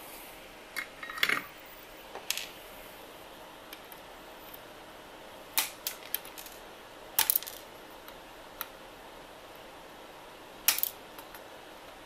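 Flush cutters snipping the leads of freshly soldered resistors on a circuit board, a sharp click with each cut, about eight at uneven intervals. A small fan hisses steadily underneath.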